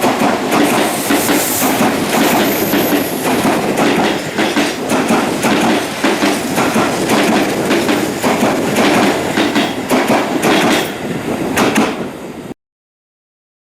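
Train wheels clattering over rail joints while running, a dense stream of clicks over steady rolling noise. It cuts off suddenly near the end.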